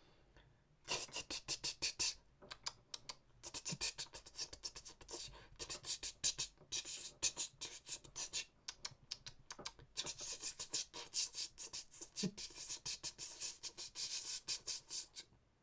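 Mouth-made imitation of typing on a computer keyboard and clicking a mouse: rapid, dry clicks in runs with short pauses, starting about a second in.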